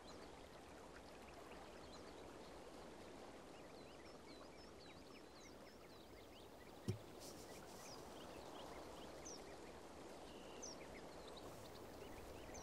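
Faint outdoor ambience: a steady low hiss with many small bird chirps scattered throughout, and one soft thump about seven seconds in.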